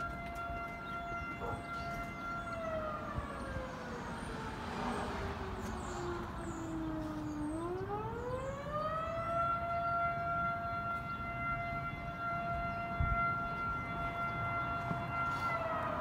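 Outdoor warning siren sounding: a steady tone that slowly winds down in pitch from about two seconds in, climbs back up around the middle, holds steady again, and begins falling once more near the end.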